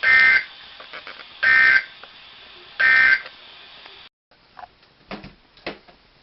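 Three short bursts of Emergency Alert System SAME data tones, a buzzing two-tone digital signal repeated about a second and a half apart: the end-of-message code that closes the alert. Faint broadcast hiss lies between them, and the signal cuts off about four seconds in, leaving a few faint clicks.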